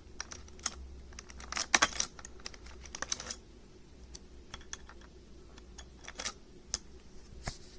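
Irregular light clicks and taps over a faint low hum, bunching into quick flurries about one and a half to two seconds in and again around three seconds in.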